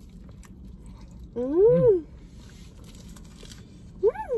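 Two short hummed "mmm" sounds of enjoyment from a person eating with a full mouth, each rising then falling in pitch: a longer one about a second and a half in, a shorter, higher one near the end. Faint chewing in between.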